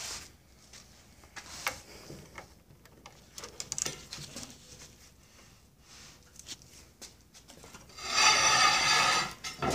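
Scattered light clicks and taps of a screwdriver working the screws on a Johnson 9.5 HP outboard's gearcase. About eight seconds in comes a loud metal rasping scrape lasting nearly two seconds, as the tool bites on a stuck screw that will not turn.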